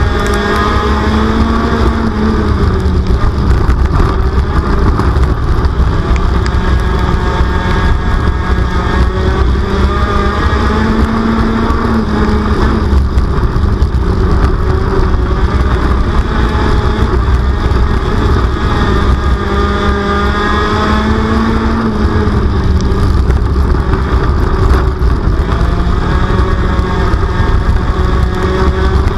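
Race car engine heard from inside the car at racing speed on a dirt oval. Its pitch rises and falls in a repeating cycle about every nine seconds, once per lap, as it accelerates down the straights and comes off the throttle for the turns.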